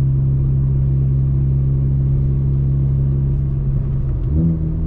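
Turbocharged Volkswagen Golf engine droning steadily under way, heard from inside the cabin; about four seconds in the note wavers and drops to a lower pitch.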